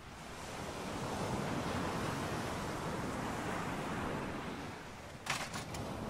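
Outdoor rushing noise of wind and distant surf that swells for a few seconds and then eases, with a quick cluster of sharp clicks near the end.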